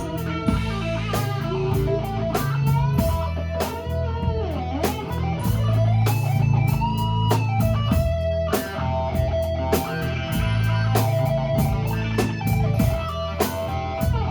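Live rock band in an instrumental break: an electric guitar plays a lead with bending notes over a steady bass line and drums.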